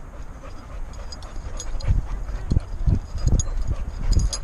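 A young Leavitt Bulldog's sounds close to the microphone, over a run of irregular low thumps from about two seconds in.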